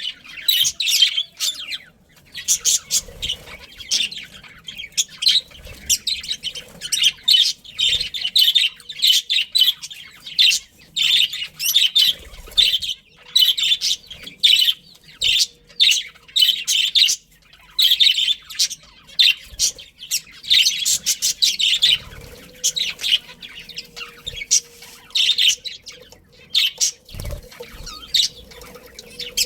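A flock of budgerigars chattering, with many quick high-pitched chirps overlapping without a break.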